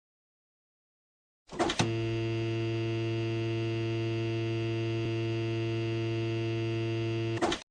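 Silence, then about a second and a half in a short burst opens into a steady electronic hum made of many unchanging tones. It holds for about six seconds and cuts off abruptly after a second burst near the end: a synthesized drone sound effect.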